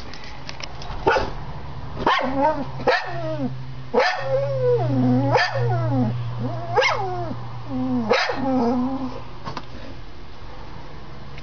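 A dog barking and whining in a string of about seven loud yelps that rise and fall in pitch, the frantic calls of a dog upset at its people leaving. A steady low hum runs beneath.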